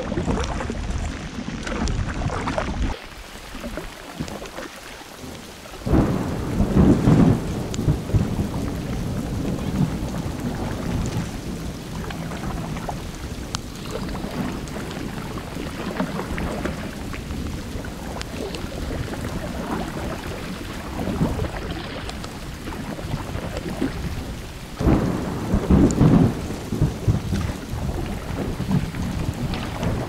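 Thunderstorm: steady rain with thunder rumbling, loudest in two low peals, one about six seconds in and one near the end.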